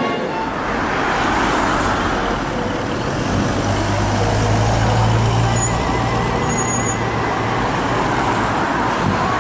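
Road vehicles driving slowly past, among them a WWII-era military truck and modern cars, with a low steady engine drone that is strongest in the middle.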